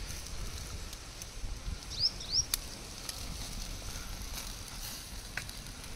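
Open wood fire crackling, with a few scattered sharp pops, under chicken pieces roasting on sticks.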